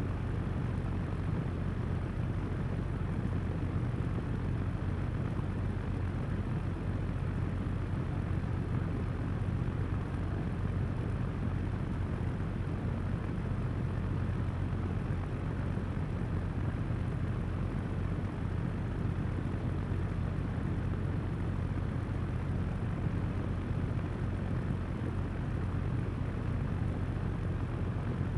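Electric floor fan running steadily at one speed: an even rush of moving air over a low motor hum.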